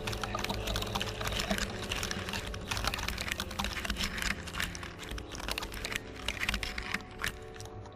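Dense, irregular crackling and clicking over a low, steady hum.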